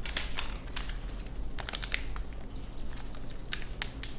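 Plastic wrapping crinkling in the hands in short, irregular crackles.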